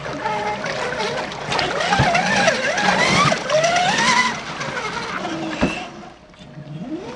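Radio-controlled scale crawler's brushed electric motor and SCX10 transmission whining, the pitch rising and falling with the throttle as it drives through a shallow creek, with water splashing. The sound drops away about six seconds in.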